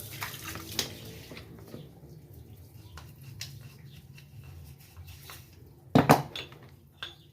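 Small metal parts being handled on a workbench: light clicks and knocks, then a loud double clatter about six seconds in.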